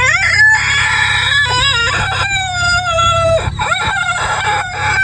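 A man imitating a rooster crowing with his voice: a string of loud crow-like calls that glide and waver in pitch, with one long held call in the middle.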